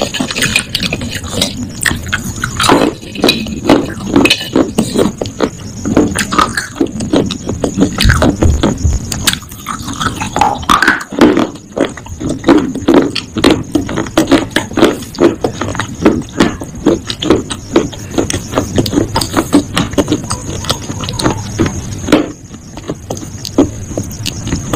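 A person chewing and crunching close to the microphone, with many sharp crunches a second.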